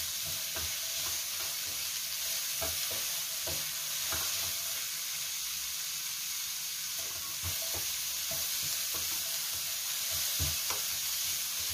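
Julienned carrot, onion, garlic and chilli sizzling as they are stir-fried in oil in a frying pan, with a steady hiss. A cooking spoon scrapes and taps irregularly against the pan as the vegetables are turned.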